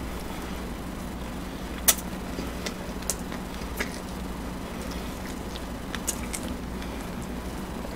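Close-miked chewing: a handful of sharp wet mouth clicks and smacks while a mouthful of food is eaten, the sharpest about two seconds in. A steady low hum runs under it.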